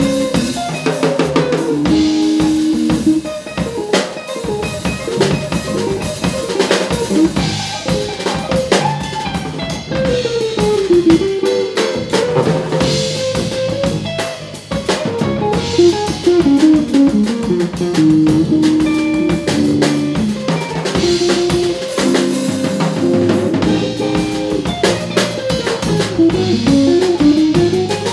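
Live funk-jazz fusion band playing, with the drum kit up front: busy snare, rimshot and bass drum hits under cymbals. Upright bass, electric guitar and a wind instrument carry the melodic lines, with stepping runs up and down.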